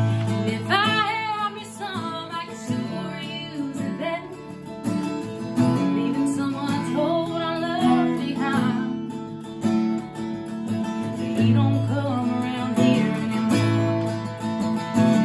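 A woman singing a slow song over a strummed acoustic guitar.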